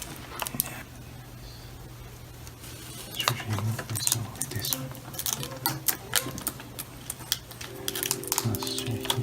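Irregular light clicks and taps of hands working a laptop's LCD panel and its plastic bezel parts loose, thickening from about three seconds in, over a steady low hum.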